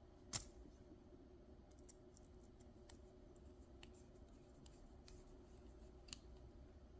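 Near silence: faint scattered clicks and taps of small parts being handled, with one sharper click about a third of a second in, over a low steady hum.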